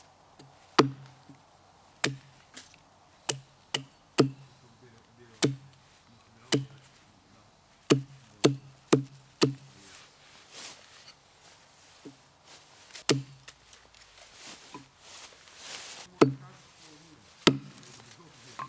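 Knife blade chopping into a wooden stick held against a log, cutting a point onto a stake: sharp wooden knocks, irregular, about one a second or faster for the first ten seconds, then only a few more near the end.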